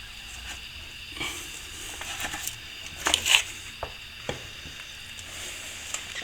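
Small plastering scraper working wet plaster: irregular scraping strokes with a few sharp taps, the loudest burst of scraping about three seconds in.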